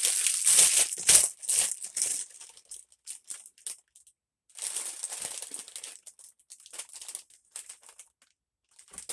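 Packaging crinkling as it is handled around a newly unboxed mold, loudest in the first two seconds, then a second stretch of crinkling after a short pause.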